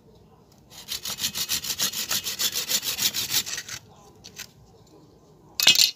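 Hand saw cutting through a branch of a hoa mua (Melastoma) stump: quick back-and-forth strokes, about four or five a second, for about three seconds. A brief loud noise near the end.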